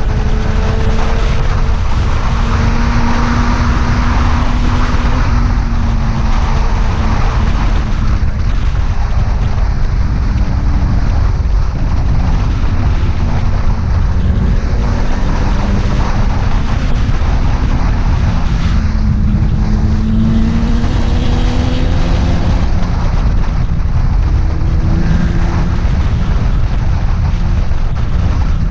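Motorcycle engine running under way, its pitch drifting gently up and down over a heavy low rumble.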